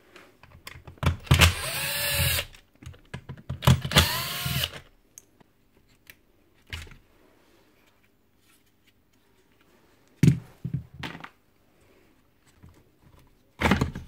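Cordless drill-driver running in two short bursts, each spinning up and winding down as it backs out screws from a demolition hammer's motor housing. A few sharp knocks and clinks of parts being handled follow.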